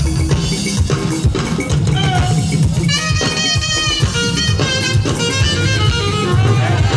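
Loud live gospel band music with a steady drum-kit beat and bass; about three seconds in a saxophone comes in with quick runs of high notes.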